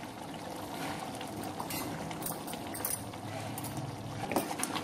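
Thick tamarind curry (kara kuzhambu) boiling in an open aluminium pot on a gas stove: a steady soft bubbling with scattered small pops. It is cooked down to the stage where the oil separates at the edges.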